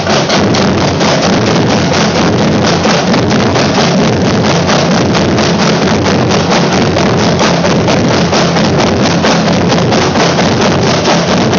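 A drumline playing a fast, dense stretch of strokes together at a steady, loud level.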